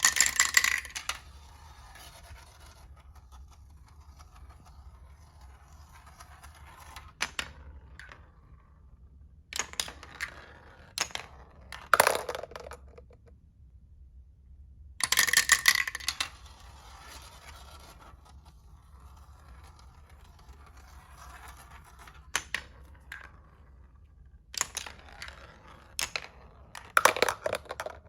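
Marbles clattering and rolling down a marble run, in several loud bursts of rapid clicks and clacks with quieter rolling rattles between them.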